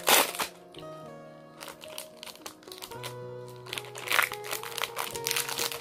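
Chocolate bar wrapper crinkling as it is unwrapped by hand: several sharp crackles, the loudest right at the start, over background music with held notes.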